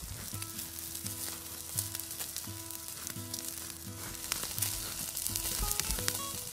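Bacon grease sizzling and popping as it drips from bacon-wrapped jalapeño poppers on a hanging grate into an oak fire, a steady hiss with many small pops. Soft background music plays underneath.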